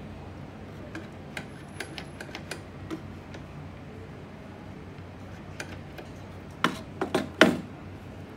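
A black rotary-dial desk telephone being handled: a few light plastic clicks at its cradle, then about four louder clunks close together near the end as the handset is set down onto the cradle.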